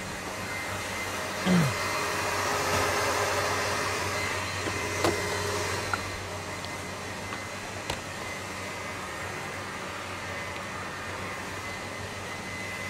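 Steady whirring of kitchen machinery with a low hum, louder for the first few seconds. A few light knocks of metal baking trays and a steel cake frame being handled on a stainless-steel counter sound over it.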